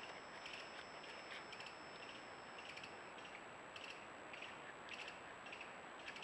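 Faint camera-trap recording: an even hiss with a thin, steady high whine, and a second whine that stops about three seconds in. Faint short ticks come at irregular intervals, a few a second.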